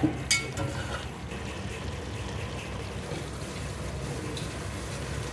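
Potato, tomato and yogurt masala bubbling and simmering in an aluminium pot on the stove, a steady wet sizzle as it is fried until the oil rises. Two light clicks near the start.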